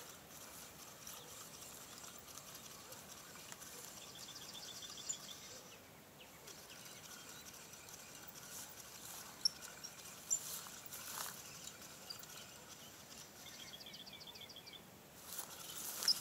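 Quiet riverside dawn ambience with a small bird giving a short, rapid trill of evenly spaced high notes twice, about ten seconds apart. A few faint sharp clicks come in between, and the background noise rises near the end.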